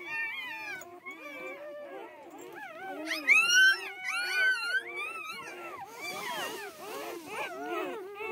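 A litter of newborn Kangal puppies whining and squeaking, many thin calls overlapping, loudest about three seconds in.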